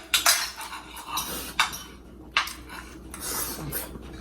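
Cutlery clinking against a plate or dish: several sharp, irregular clinks and scrapes.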